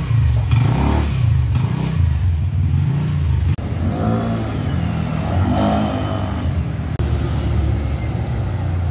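A Yamaha NMAX 155 scooter's single-cylinder engine running with the rider aboard, on a road test with its clutch freshly cleaned to cure dragging. About three and a half seconds in, the sound changes to road traffic, with vehicles passing.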